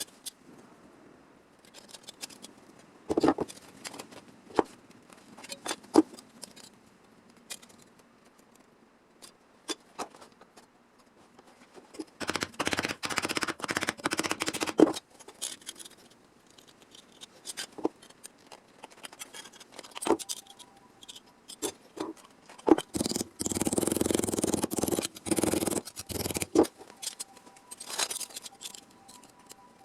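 Hand tools working thin sheet steel for a rust repair: scattered clicks and snips, with two longer stretches of scraping, one about halfway through and one near the end.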